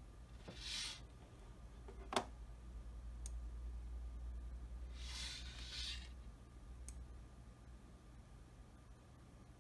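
A hand working a computer mouse at a desk: one sharp click about two seconds in, two faint ticks, and two brief swishes, over a low steady hum.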